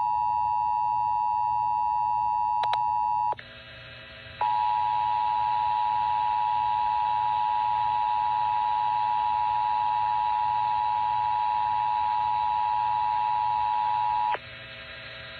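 Emergency Alert System attention signal: a loud, steady electronic tone that drops out for about a second a little over three seconds in, then resumes and cuts off about a second before the end. It marks the start of an emergency alert message, here an Amber Alert.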